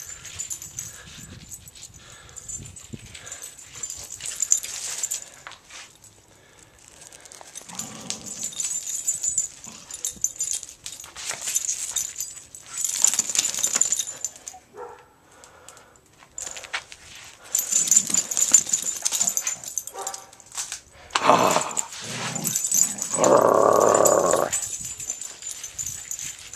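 Two terriers vocalizing as they play over a toy, with scattered short dog sounds and a louder stretch of barking and growl-like noise near the end.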